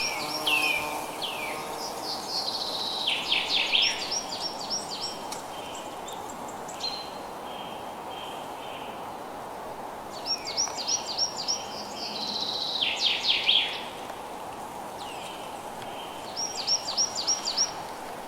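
Steady rain hiss with a songbird singing over it: about four phrases of quick, high, down-slurred whistled notes, each lasting a second or two, with pauses between them.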